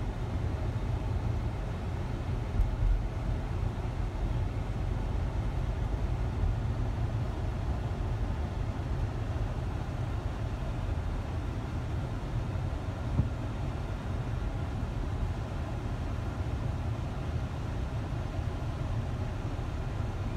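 Steady low road-and-engine rumble of a vehicle being driven, heard from inside the cab, with a brief bump about three seconds in and another about thirteen seconds in.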